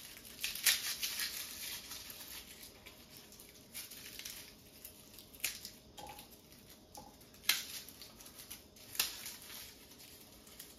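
Garlic being handled by hand: light papery crackling with a few sharp clicks scattered through.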